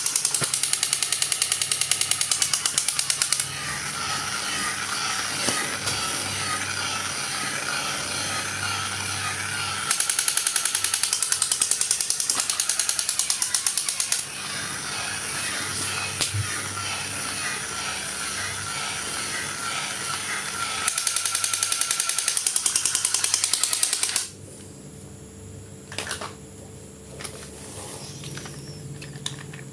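A small motor and gears running with rapid clicking, in three louder stretches with a wavering whine between them; about 24 seconds in it drops to a faint hum with a few knocks.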